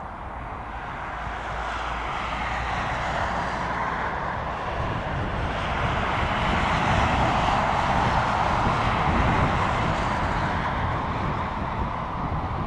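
Twin jet engines of a Luftwaffe Airbus A310 at high power for takeoff, a steady rushing jet noise that grows louder for about eight seconds and then eases slightly as the airliner rolls away down the runway.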